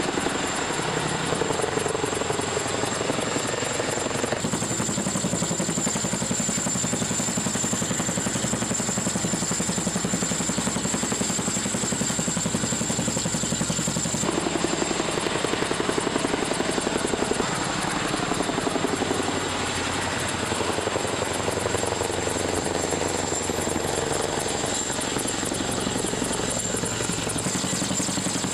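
Boeing CH-47 Chinook tandem-rotor helicopter hovering close overhead with a sling load: a steady, rapid beat of the rotors over a continuous high whine from its turboshaft engines.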